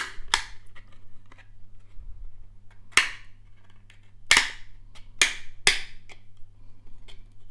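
Plastic clips of an SSD's plastic case snapping as the case is pried open with a knife: about six sharp cracks, spread over the first six seconds.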